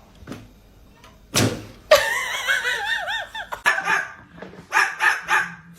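A dog vocalising: after a thump, a long whining call with a wavering pitch, then a run of short yips and barks.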